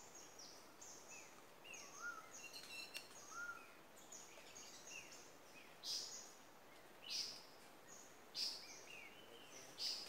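Faint chorus of several forest birds singing and calling: many short high chirps that slide downward, two lower rising-and-falling whistles in the first few seconds, and louder sharp high notes about every second and a half in the second half.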